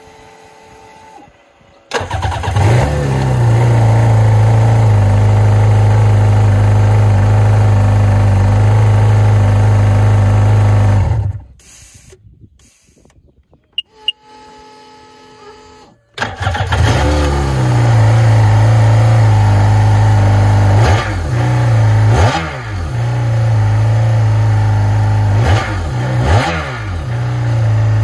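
Seadoo 951 direct-injection two-stroke twin engine starting about two seconds in and idling steadily, then shutting off. It starts again a few seconds later and idles, with a few quick throttle blips where the revs rise and fall.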